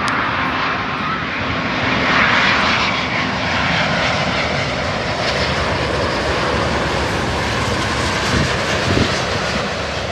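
Airbus A350's Rolls-Royce Trent XWB jet engines running loud and steady as the airliner comes in to land, with a whine that falls in pitch about two to three seconds in.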